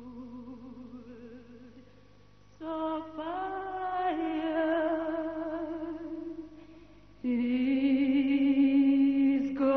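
Slow vocal music: a voice sings long held notes with vibrato, with no words spoken. It starts softly, comes in louder about two and a half seconds in, and swells again on a lower held note about seven seconds in.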